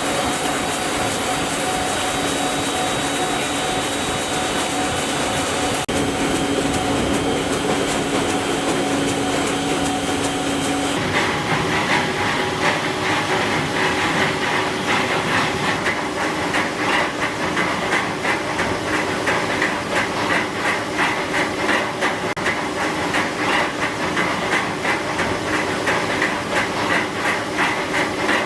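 Plastic film recycling washing line machinery running, a steady mechanical hiss and hum. About eleven seconds in it changes abruptly to a different machine noise that pulses rapidly and unevenly.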